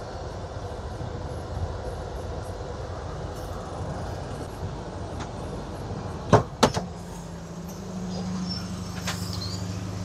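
Small car engines running as vehicles are driven in and out of a driveway. A little past halfway there are two sharp knocks close together, the loudest sounds, and after them a steadier engine hum.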